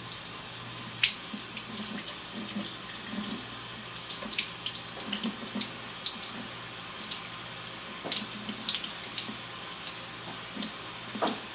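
Thin stream of water running steadily from a kitchen faucet into a sink as pieces of salmon are rinsed under it by hand, with small irregular splashes as the fish moves through the stream.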